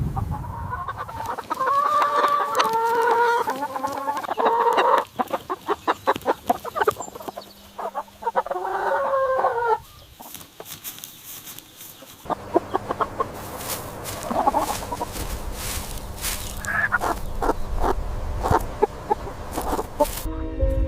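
Chickens clucking and calling in two bursts, with many short sharp taps and clicks through the rest.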